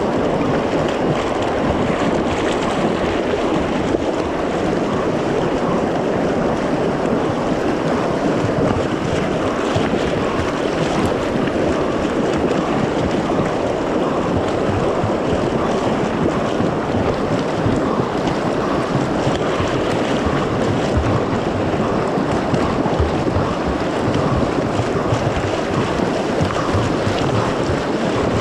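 Fast, churning whitewater rushing and splashing right at a water-level microphone, a steady, loud wash of noise with no pause.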